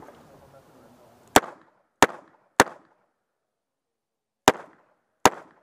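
Five shots from a stainless semi-automatic pistol: three quick shots about half a second apart, then a pause of nearly two seconds and two more shots. Each shot is a sharp crack with a brief echo.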